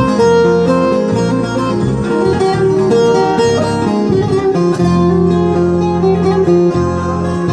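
Instrumental introduction of a Turkish folk song (türkü) played on plucked string instruments, a continuous melodic line over sustained low notes.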